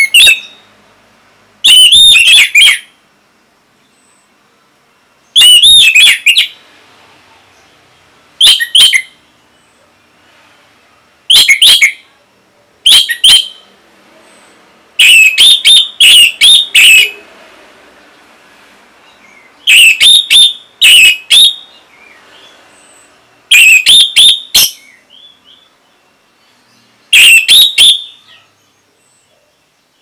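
Orange-headed thrush (anis merah) singing loud song phrases: about ten separate bursts of rapid, warbling notes, each lasting about a second, with pauses of a few seconds between them.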